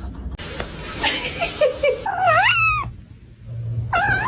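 A cat meowing twice, each meow under a second long and bending in pitch. The first comes about two seconds in, the second near the end, after a stretch of hissy noise.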